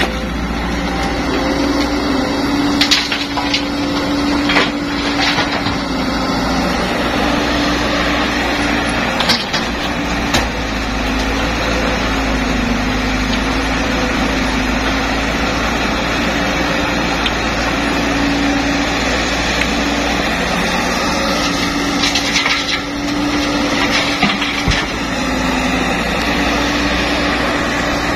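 Hydraulic excavator's diesel engine running under load, its note rising and falling as the hydraulics work, with a few sharp clanks and knocks of the bucket and rock scattered through.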